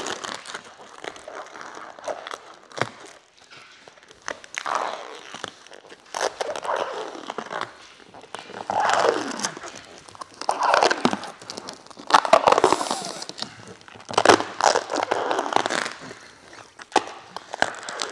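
Paint protection film being peeled by hand off a truck's painted hood, crackling and crinkling in repeated pulls every second or two; several pulls carry a squeal that falls in pitch as the film stretches away from the paint.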